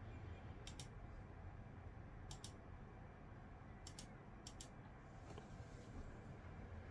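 Faint computer mouse clicks: four quick double clicks, each a press and release, spread over about four seconds, selecting options in a PC's BIOS menu.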